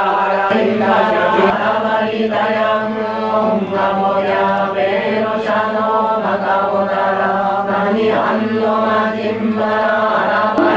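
A group of voices chanting a Buddhist sutra in unison, on a steady, near-monotone pitch.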